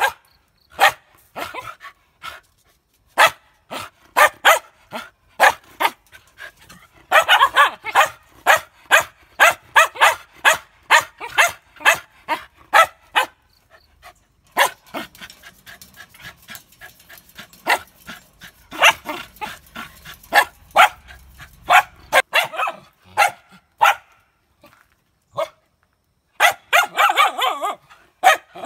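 Samoyed dogs barking in quick runs of short, sharp barks with brief lulls between. The densest runs come about seven seconds in and again near the end.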